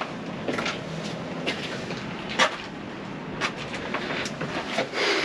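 Footsteps on stone, roughly one a second, over a faint steady outdoor hiss.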